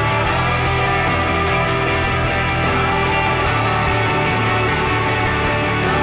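Background music: a dense, steady instrumental track that runs at an even level without a break.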